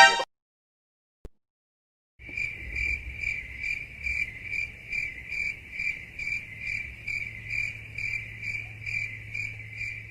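Crickets chirping, the stock meme sound effect for an awkward silence: an even, pulsing chirp about two to three times a second over a faint low hum, starting about two seconds in. A brief loud burst, the tail of the previous effect, comes at the very start.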